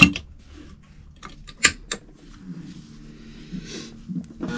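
A few sharp clicks and knocks from a 1969 sewing machine being set up, its front dial turned and the fabric positioned under the foot. Its electric motor starts running right at the end.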